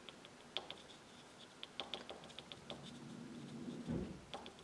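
Soft pastel stick tapping on textured paper: quick, irregular light taps as green dots are dabbed on, with a soft swirling rub and a dull thump about four seconds in.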